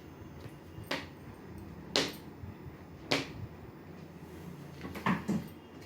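A hair crimping iron's plates clacking as it is opened and pressed shut on the hair: sharp clicks about a second apart, then two in quick succession near the end.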